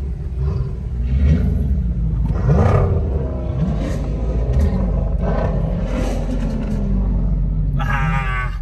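Dodge Charger SRT8's HEMI V8 rumbling at low speed, heard from inside the cabin, with the revs rising briefly a few times.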